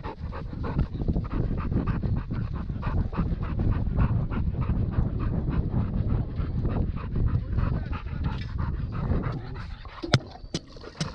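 German Shepherd panting fast and hard right next to the microphone of a camera strapped to its back, over a low rumble from its movement. The panting eases about nine seconds in, and a few sharp clicks follow near the end.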